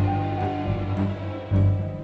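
Background music: held chords over a pulsing low bass.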